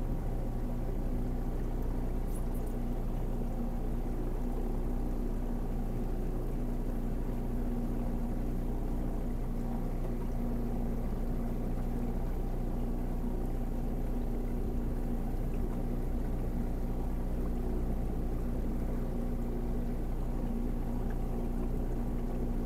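Vintage motorboat's engine running steadily at cruising speed, with water rushing along the hull.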